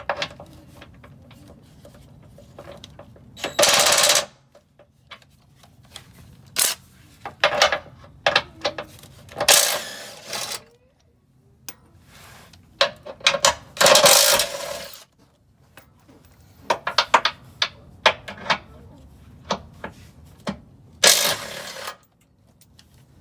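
Cordless impact driver with a socket running in several short rattling bursts, loosening the 18 mm bolts that hold a Jeep's gas tank skid plate to the frame; the longest burst runs about a second and a half a little past the middle.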